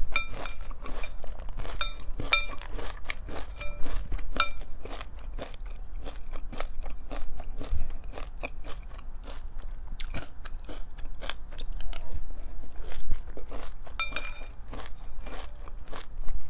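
A person chewing crunchy pumpkin cereal: steady crunching and chewing, with a few short ringing clinks.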